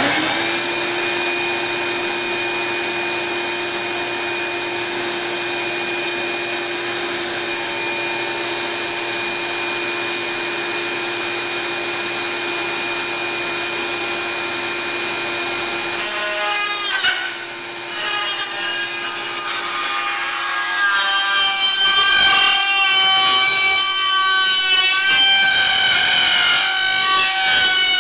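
Dremel rotary tool with a cutoff wheel switched on and running at a steady high whine. About two-thirds of the way in the pitch dips and starts to waver and the sound grows louder as the wheel cuts into the carbon-fibre flange under load.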